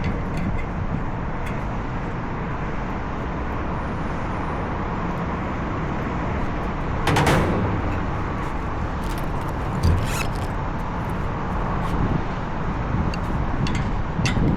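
Steady running noise of rooftop HVAC equipment, with a brief whoosh about seven seconds in and a single knock near ten seconds.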